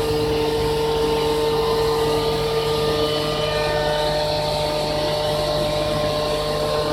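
CNC vertical machining center running: a steady machine hum with several held whining tones over a constant low drone.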